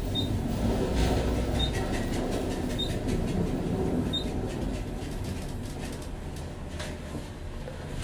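Elevator car travelling upward: a steady low rumble and hum, with four short high beeps spaced a little over a second apart in the first half.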